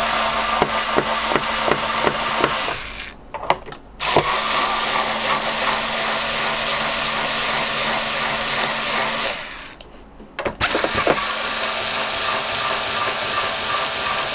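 Cordless electric screwdriver running steadily as it backs screws out of a plastic cassette-recorder case, with a few clicks. It stops briefly twice, about three and ten seconds in, as it moves to the next screw.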